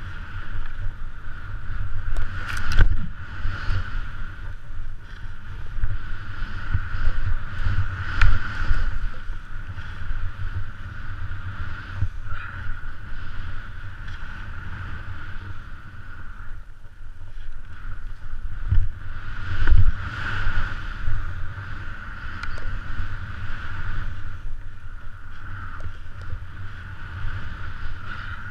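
Skis running through deep powder, recorded on a body-mounted action camera: wind buffets the microphone as a steady low rumble over the hiss of the skis in snow. A few heavier thumps stand out, about 3, 8 and 20 seconds in.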